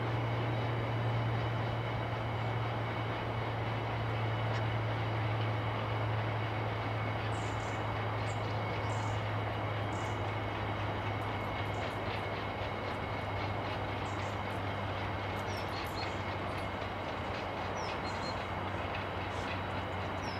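Cement tank wagons of a freight train rolling steadily past, a continuous low rumble that slowly eases, with a few short high squeaks from about seven seconds in.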